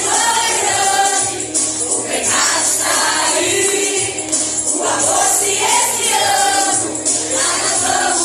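Gospel hymn sung by a choir over instrumental backing, with a tambourine shaking along.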